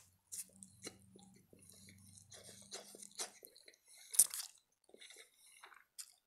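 Close-up eating sounds: spaghetti being slurped and chewed, with many short wet mouth clicks and smacks. A louder slurp comes about four seconds in.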